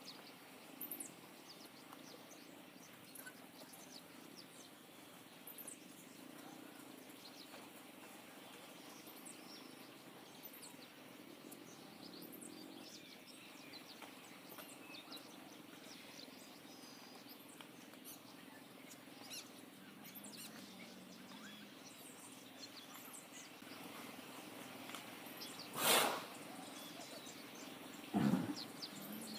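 Small birds chirping faintly over a steady low hum, with two short loud noises near the end, about two seconds apart.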